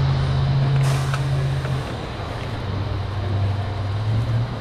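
Vehicle engine idling with a steady low hum that drops slightly in pitch about two seconds in and rises again near the end. A brief faint rustle comes about a second in.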